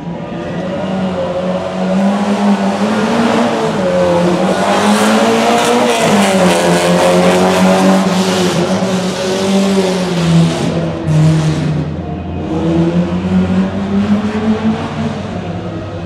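Rally car engine working hard on a special stage, its pitch climbing and dropping in steps as it changes gear and revs. Sharp crackles and pops stand out for several seconds in the middle, and the engine note falls away toward the end.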